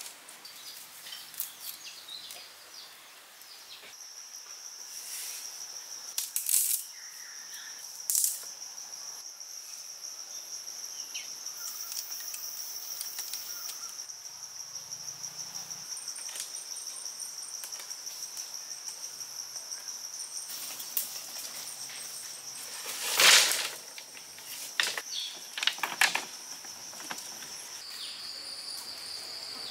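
Insects droning in a steady high whine, dropping slightly in pitch near the end. Over it come a few short knocks and rustles of thin sticks being handled and tied, the loudest a sharp knock about two-thirds of the way through.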